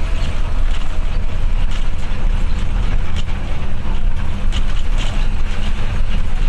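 An intercity bus's diesel engine and drive rumbling low and steadily, heard from inside the cabin. The engine is coughing intermittently, a fault the crew puts down to a sensor.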